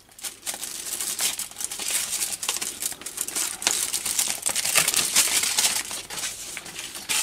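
Chocolate bar packaging crinkling and rustling as it is handled, a dense run of sharp crackles.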